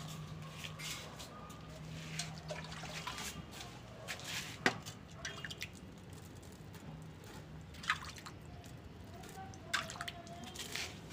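Scattered drips and small ticks as water is sprinkled by hand onto grain in a metal pan, a few sharper drops standing out now and then.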